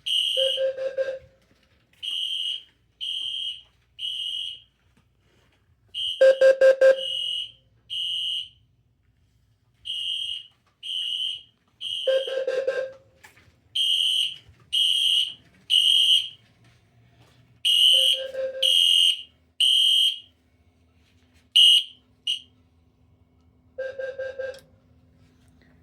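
Two Wheelock fire alarm devices sounding together. A low-frequency sounder on code 4 gives bursts of four quick low beeps (its 520 Hz square-wave tone) about every six seconds. Over it, a horn strobe sounds a high-pitched temporal code 3 pattern: three beeps, then a pause.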